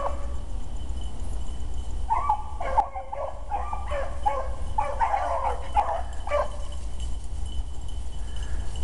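Beagle hounds baying repeatedly on a rabbit's trail, a string of short calls in quick succession that starts about two seconds in and stops a little past halfway.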